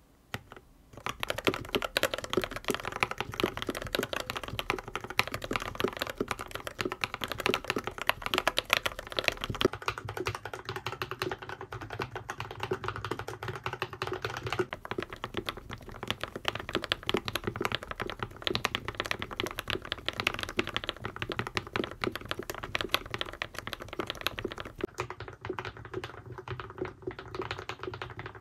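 Fast, steady typing on a mechanical keyboard with KTT Sea Salt Lemon linear switches, starting about a second in. The switches are stock in the first half and lubed in the second. Part of it is heard through a phone's microphone rather than a desk microphone.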